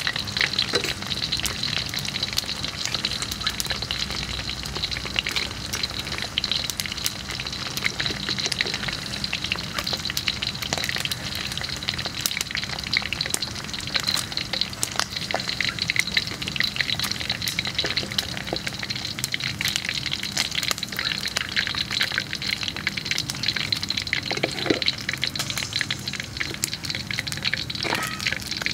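Balloon frogs deep-frying in hot oil in a steel wok: a steady sizzle thick with small crackles and pops.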